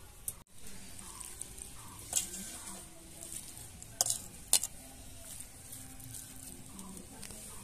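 Stainless-steel spoon and bowls clinking a few times as food is served out: once about two seconds in, then twice close together around four seconds in, over a faint steady high hiss.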